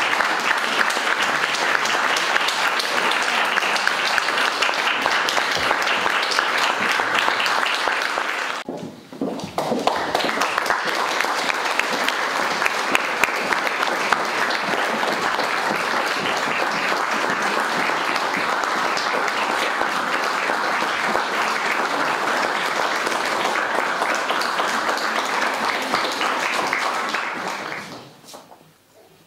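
Audience applauding, a dense patter of many hands clapping. The applause drops out briefly about nine seconds in, comes back, and dies away near the end.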